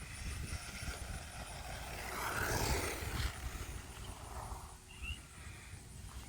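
A vehicle going by, its hiss swelling to a peak about two and a half seconds in and then fading, over a steady low rumble.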